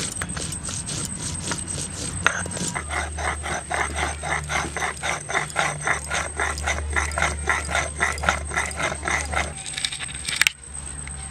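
Stone roller worked back and forth on a flat stone grinding slab (shil-nora), crushing red chillies and spices into a wet paste: a quick rhythmic stone-on-stone scraping of about four strokes a second, which stops about a second before the end.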